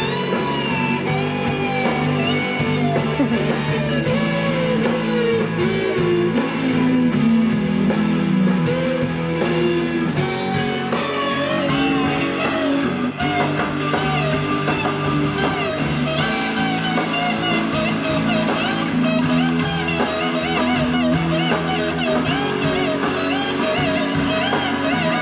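Blues-rock electric guitar lead, with bent and wavering notes over a steady lower accompaniment. It cuts off suddenly at the end.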